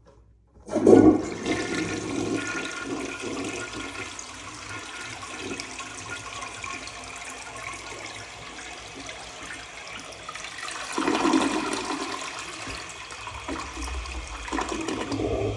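1964 Kohler Cayuga wall-hung toilet flushing: a sudden rush of water under a second in, a long swirling run of water, and a second loud surge around eleven seconds before it eases off.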